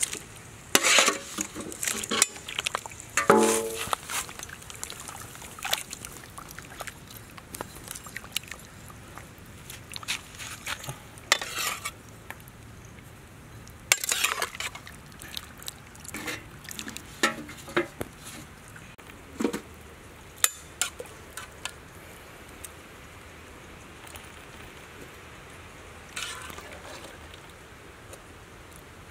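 Metal cookware being handled: scattered clinks and knocks of a metal tray and a wok, with some sloshing of water as baby crocodiles are moved in and out of the wok.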